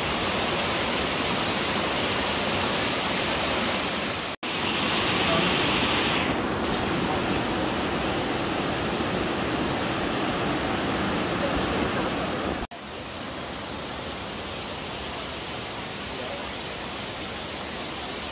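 Steady rush of running spring water. It breaks off at two sudden cuts and is a little quieter after the second one.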